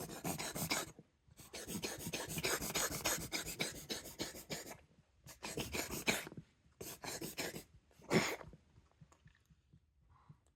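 Brown tabby cat reverse sneezing: several bouts of rapid, noisy snorting breaths drawn in through the nose, the longest lasting about three seconds, with a last short one about eight seconds in.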